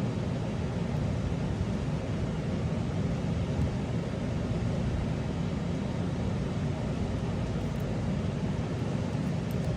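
Steady low background rumble of room noise with no distinct events, plus a few faint light ticks near the end.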